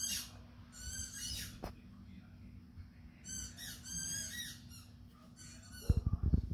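Two short runs of rapid, high-pitched squeaks, about a second in and again midway, followed near the end by a few sharp knocks, the loudest sounds here.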